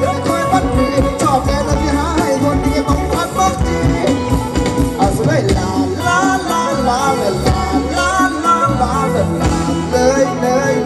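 Live band playing Thai ramwong dance music, with a steady beat under a wavering melody line.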